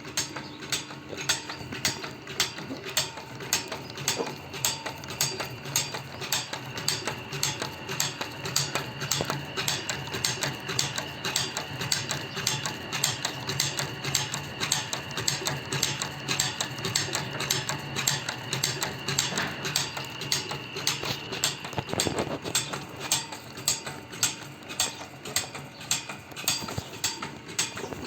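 Band saw blade tooth-setting machine running: a motor hum under an even clicking, about two clicks a second, as it bends the blade's teeth alternately to either side and indexes the blade along.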